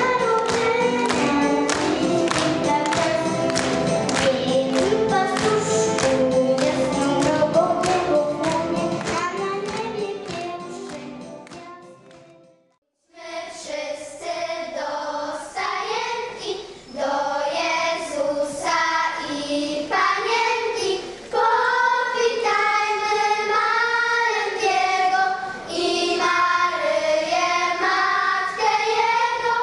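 Music with a steady beat fades out to a moment of silence about twelve seconds in. Then a children's choir sings a Polish Christmas carol (kolęda).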